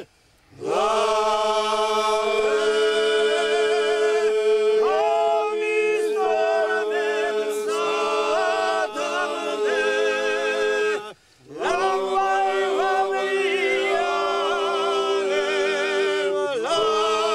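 A men's group singing a Georgian polyphonic folk song a cappella: a steady held drone under ornamented, wavering upper voices. The singing starts about half a second in, stops briefly about 11 seconds in, and picks up again.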